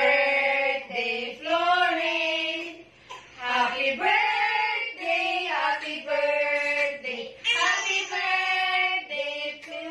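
Women and a girl singing a birthday song together in held notes, to a cake with lit candles.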